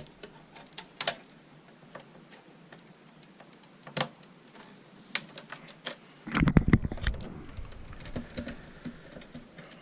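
Scattered clicks and taps of a screwdriver working at small screws inside an original Xbox's plastic case. About six and a half seconds in there is a louder, brief clatter of handling.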